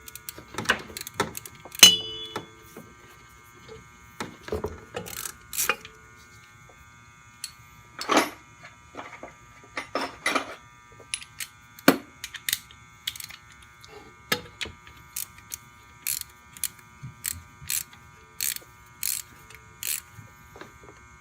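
Scattered sharp clicks and clinks of a 17 mm wrench tightening a motorcycle's oil drain plug, over a faint steady high hum.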